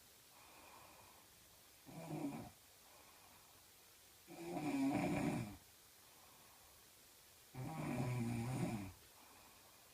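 A sleeping woman snoring heavily: three snores about three seconds apart, the first short and quieter, the next two longer and louder, with faint breaths between them.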